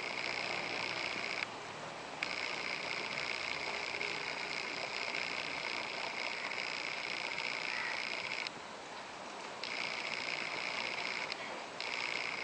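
An animal calling in long, rapidly pulsing trills that stop and start several times: a stretch of about a second and a half, a long one of about six seconds, then shorter ones of a second or two.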